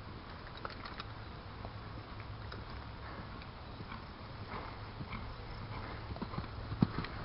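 Hoofbeats of a cantering Thoroughbred horse on sand-and-gravel arena footing. They are faint and muffled at first and grow louder and sharper near the end as the horse comes close.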